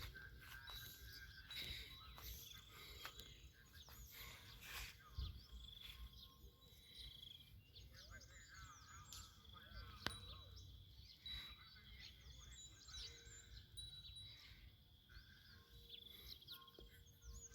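Faint birds chirping and calling over a quiet background, with scattered small clicks and one sharp click about ten seconds in.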